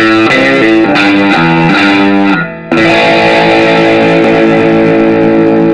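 Intro music led by electric guitar: a quick riff of short notes, a brief break about two and a half seconds in, then one long held chord.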